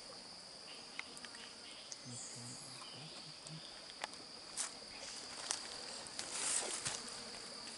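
Steady high-pitched drone of forest insects, with scattered sharp clicks and a short rustle near the end from handling things on the ground, and a faint low voice about two seconds in.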